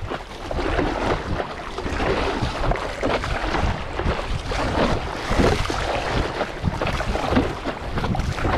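Choppy sea water splashing irregularly against the nose of a stand-up paddleboard as it is paddled along, with paddle strokes in the water and a steady rumble of wind on the microphone.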